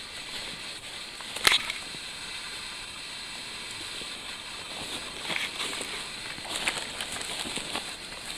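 Footsteps and rustling of walkers pushing through grass and brush on a steep trail, with one sharp click about a second and a half in.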